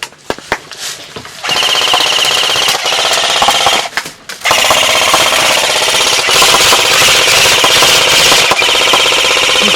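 Airsoft M60 electric support gun firing on full auto, its gearbox cycling in a rapid mechanical rattle. A few single clicks come first, then a burst of about two and a half seconds, and after a short pause a second burst of about five seconds.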